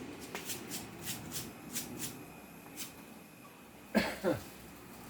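Light clicking and rustling handling noises, then two short squeaks falling in pitch about four seconds in, the loudest sounds.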